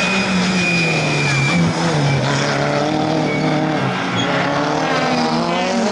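Rally car engine run hard through a corner, its note dropping and climbing again several times as the driver lifts, shifts and gets back on the throttle, with a thin high tyre squeal in the first second and a half.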